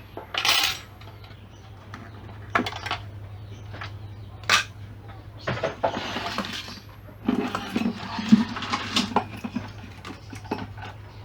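Tools and small metal parts clinking and clattering in irregular bursts as an active subwoofer speaker is taken apart by hand.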